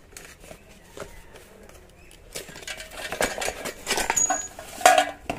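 Small hard electrical parts and wire being handled: a few faint ticks, then from about halfway a busy run of clicks, knocks and rustling, loudest near the end.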